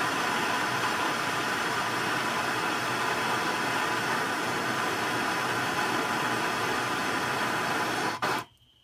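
Flame of a hand-held Bernzomatic gas torch hissing steadily, heating a connector pin for soldering; the hiss stops abruptly near the end.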